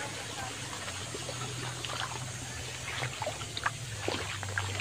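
Small creek trickling, with scattered light drips.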